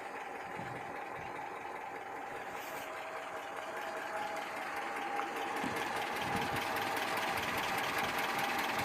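ZMZ-402 four-cylinder engine idling cold at about 550–600 rpm, with a fast, light valve-train tick over the steady running, growing slightly louder. The knock from wrist-pin-to-connecting-rod play is not yet plain at this cold idle.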